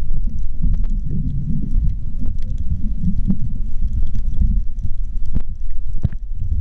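Underwater sound picked up through an action camera's waterproof housing: a steady, muffled low rumble with scattered sharp clicks throughout.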